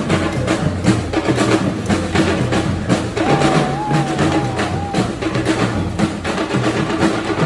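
Percussive music with a quick, steady drum beat and a wavering high note from about three to five seconds in.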